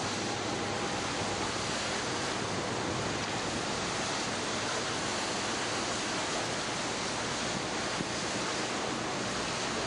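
Steady rushing noise of wind and rough sea, even and unbroken.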